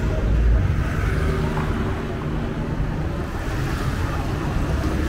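Street traffic: motor vehicles running past in a steady low rumble.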